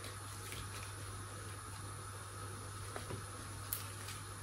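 Quiet kitchen room tone with a steady low hum, and a few faint small ticks about three seconds in from fingers handling a candle wick and its sticker.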